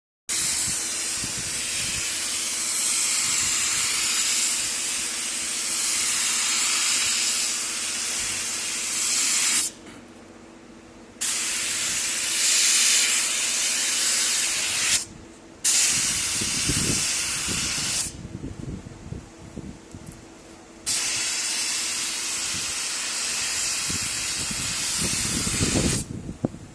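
Polyurea spray gun hissing in four long bursts, each several seconds, with short pauses between, over a steady low hum. A few dull knocks come in the later pauses.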